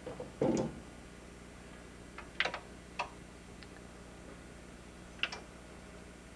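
A handful of short, sharp clicks and light knocks at irregular intervals, the loudest about half a second in, over a faint steady low hum.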